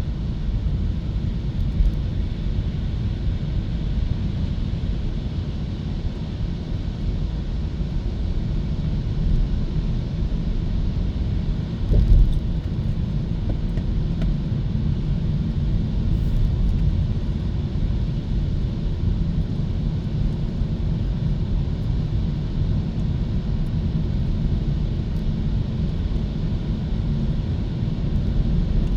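Steady low road and tyre rumble of a moving Hyundai Kona EV, with no engine note since the car is electric. A brief thump about twelve seconds in is the loudest moment, and a smaller one comes near the start.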